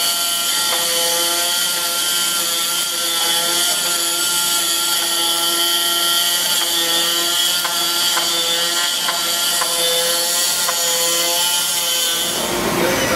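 DYSS X7 flatbed digital cutter running a cut through foam board: a steady motor whine from the moving head and gantry that shifts slightly in pitch as it changes direction, with a few short clicks, over a constant hiss. The whine stops near the end.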